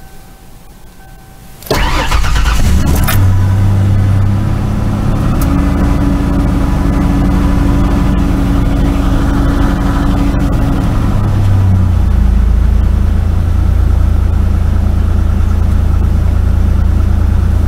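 Cold start of a 1991 Ford Explorer's 4.0 L OHV Cologne V6 in about 10-degree cold, heard from the driver's seat: it starts suddenly about two seconds in and runs at a steady fast idle, the idle dropping lower around twelve seconds in as it settles.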